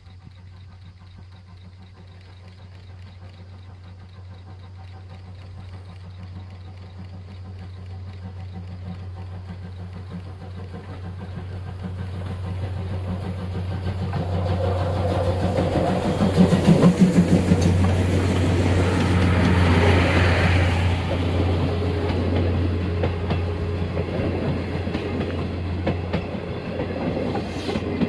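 Steam locomotive C58 363 and its passenger train approaching and passing close by. It grows steadily louder, is loudest as the engine goes by past the middle, then the coaches' wheels clatter over the rail joints as they roll past.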